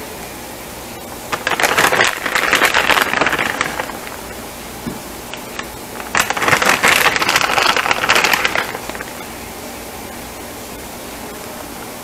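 Plastic bag of shredded cheese crinkling and rustling as a hand reaches in for cheese, in two bursts of about two and a half seconds each.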